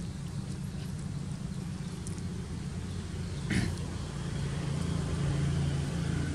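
Low steady hum of a motor engine, getting louder in the second half, with one short sharp sound about three and a half seconds in.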